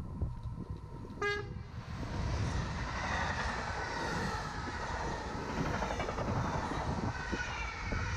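A train horn gives one short blast about a second in. Then a Belgian SNCB M6 double-deck passenger train passes close by, its wheels running on the rail in a loud, steady rush.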